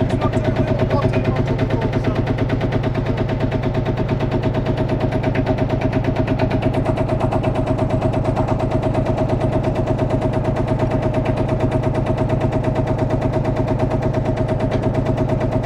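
Vintage single-cylinder diesel tractor engine running under way, with a rapid, steady thudding beat that never lets up.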